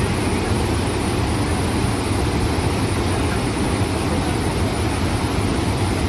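Athirappilly waterfall in full flow: a steady, even rush of falling water, heavy in the low end.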